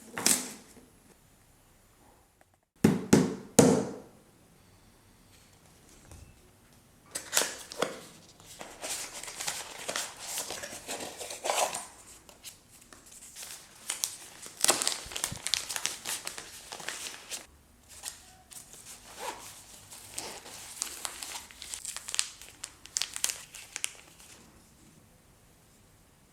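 Product packaging being opened and handled: a cluster of three or four sharp knocks about three seconds in, the loudest sounds, then long stretches of rustling, crinkling and tearing with small clicks, dying away near the end.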